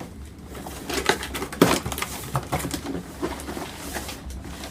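Irregular knocks, clicks and rustles of a gun box being opened and its contents handled, with one sharper knock about a second and a half in.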